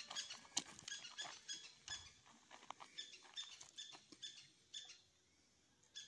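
Footsteps crunching on dry, stony ground and brittle plant litter, about two to three crackly steps a second, fading out about five seconds in.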